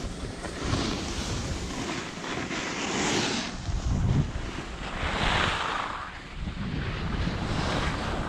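Skis sliding and carving on packed snow, a hiss that swells every couple of seconds with the turns, over a low rumble of wind buffeting the microphone.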